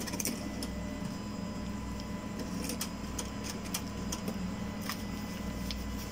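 ATM card reader taking in a bank card and reading it: scattered short mechanical clicks over a steady electrical hum.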